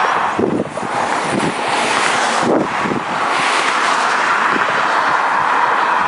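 Strong wind rushing and buffeting across the microphone, a loud steady roar of noise with short gusty thumps and a couple of brief dips.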